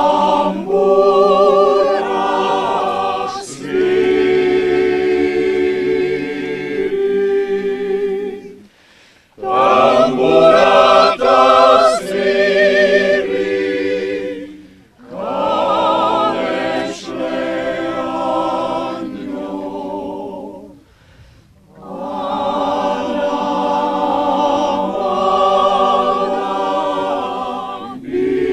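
Mixed choir of men's and women's voices singing a Macedonian folk song a cappella, in long phrases with three short breaths between them.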